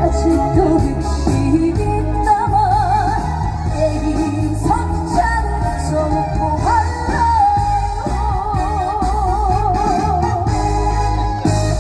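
Trot song played live through a concert PA: a melody line with heavy, wide vibrato over a backing track with a steady bass beat.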